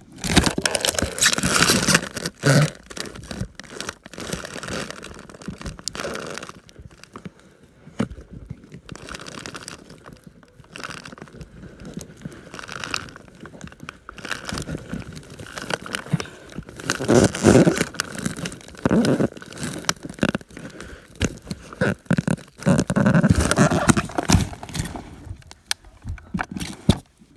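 Self-contained trash compactor crushing a cardboard box and other trash: irregular crunching, crackling and tearing of cardboard and plastic, in bursts that are loudest near the start and again about two-thirds of the way through.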